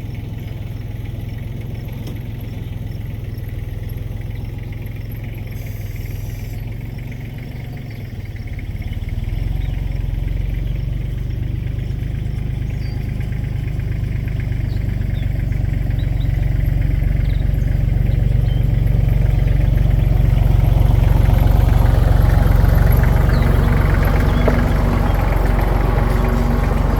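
Engine of a working machine running with a steady low drone. It gets louder about a third of the way in, and louder again past the middle with a rougher, noisier sound.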